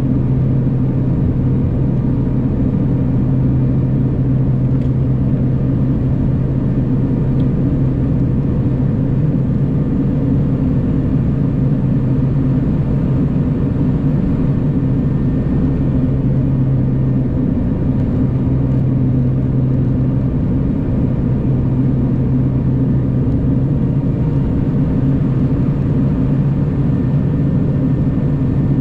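Cabin drone of a BAe Jetstream 41's Garrett TPE331 turboprops and propellers at approach power on final approach and landing: a steady rumble with a strong low propeller hum that drops out briefly about seventeen seconds in.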